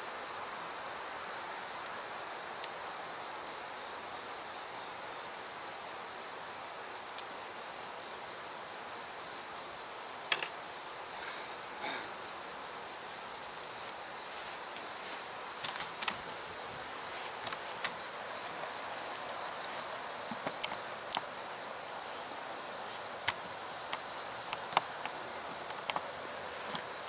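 Steady high-pitched chorus of singing insects, with a few faint clicks scattered through it.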